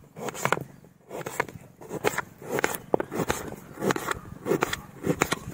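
Rice being washed by hand in a vessel of water: the grains are rubbed and swished in short scraping strokes, about two a second.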